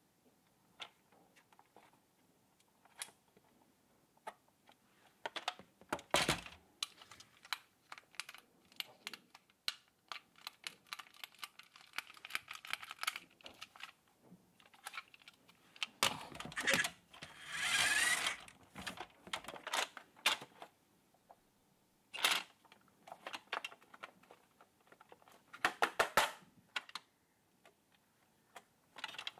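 Plastic clicks, knocks and rattles of a toy remote-control car and its plastic remote being handled and turned over, in irregular clusters with a denser stretch of rubbing and clatter a little past the middle.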